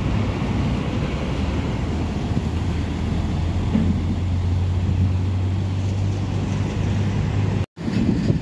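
Heavy truck diesel engine running at low speed with a steady low drone and road noise as the truck pulls away. The sound cuts out for a moment near the end.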